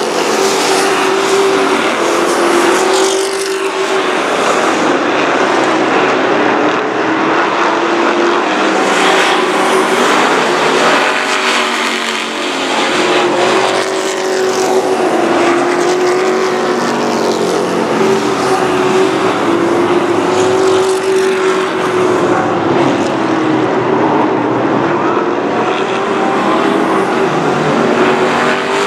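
A pack of race trucks' engines running hard at racing speed, a continuous loud drone of several engines at once that swells and dips slightly as the trucks pass through the turns.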